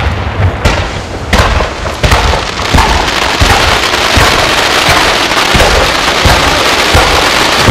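Ground-level fireworks going off: four sharp bangs in the first three seconds, then a dense, continuous crackle of many small reports.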